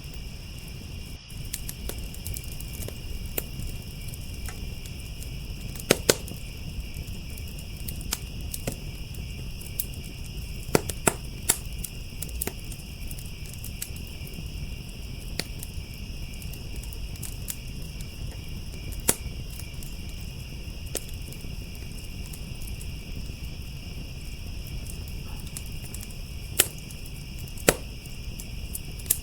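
Wood fire in a firepit crackling, with scattered sharp pops, a few much louder than the rest, over a steady high chorus of crickets chirring and a low rumble of the flames.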